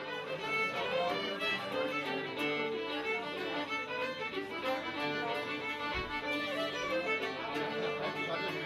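Fiddle music: a fast tune of many quick notes, played without a break.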